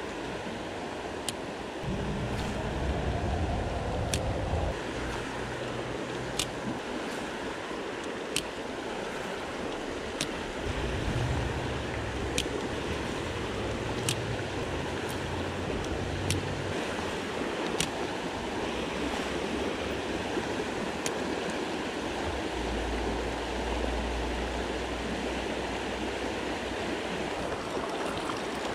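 Steady rush of a flowing trout stream, with sharp, faint ticks every second or two and stretches of low rumble.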